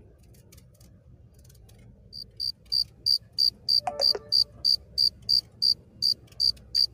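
A cricket chirping steadily, about three short high chirps a second, starting about two seconds in.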